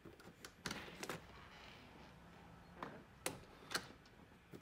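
A few quiet clicks and light knocks from a door's latch and lever handle set as the door is pushed shut and the latch catches in the refitted strike plate, a sign that the sticking fault is cured.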